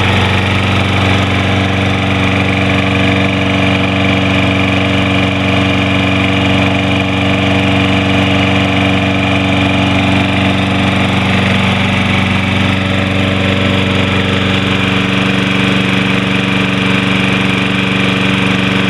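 Toro Recycler lawn mower's 190cc Briggs & Stratton single-cylinder engine running steadily and smoothly, burning off excess oil from an overfilled crankcase.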